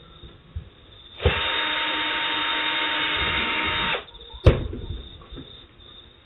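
Power drill running at a steady speed for just under three seconds, driving a speaker mounting screw in, then stopping; a single sharp knock follows about half a second later.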